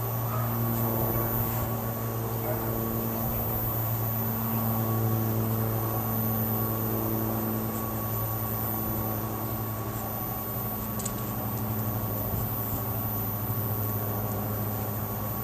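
Steady low mechanical hum of running machinery: an unchanging drone with a thin higher tone above it.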